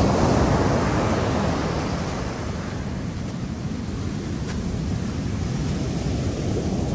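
Ocean surf breaking and washing up the sand beach, a steady rushing that is loudest at first, with wind rumbling on the microphone.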